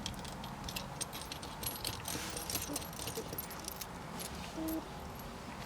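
Small metal bolts and lock washers clinking and jingling in the hand as they are fitted and started into a shifter mount: a run of irregular light metallic clicks.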